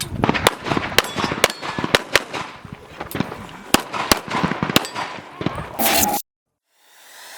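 Handgun shots fired in quick, uneven strings, each a sharp crack, a string of a course of fire in practical pistol shooting; the sound cuts off suddenly about six seconds in.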